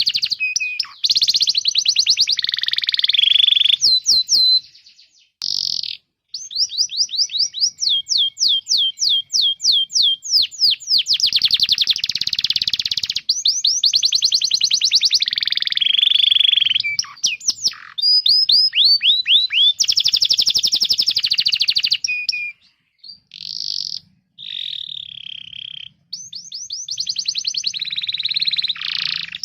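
Domestic canary singing a high-pitched song of fast rolling trills and rapid runs of downward-sweeping chirps, broken by a few short pauses about two-thirds of the way through.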